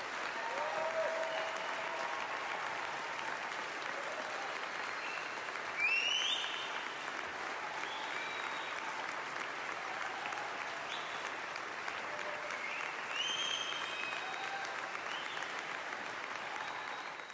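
Steady applause with a few short high-pitched calls rising over it, about six seconds in and again near thirteen seconds.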